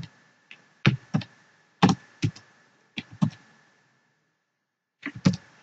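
Computer keyboard being typed on: sharp key clicks in quick pairs and small groups separated by short pauses, as a short formula is entered.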